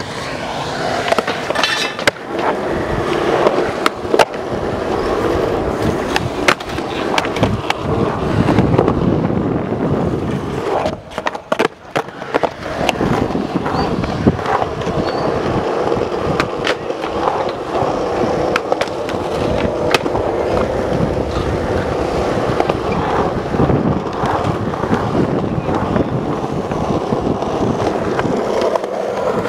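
Skateboard wheels rolling on smooth concrete, a steady rumble, broken by sharp clacks of the board striking the ground, with a cluster of clacks and a short lull near the middle.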